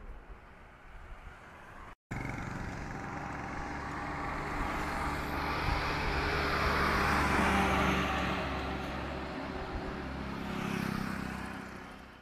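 Road traffic noise heard from a moving vehicle, with a low steady engine hum under it. It cuts out briefly about two seconds in, swells to its loudest around the middle, then fades out at the end.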